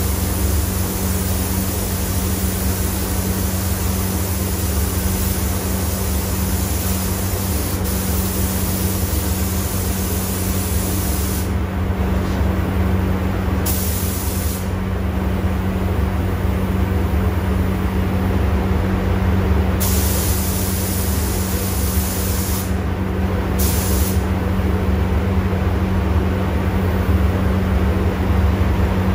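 Gravity-feed spray gun hissing as clear coat is sprayed, with the trigger let off for a moment a few times midway, over a steady low hum.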